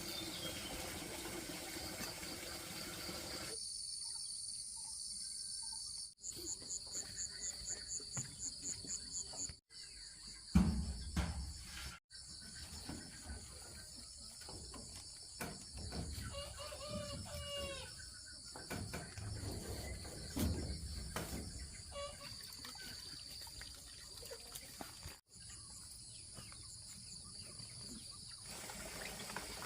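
Insects chirping steadily in high, thin tones, with a pulsing chirp for a few seconds, and chickens calling now and then. The background changes abruptly several times.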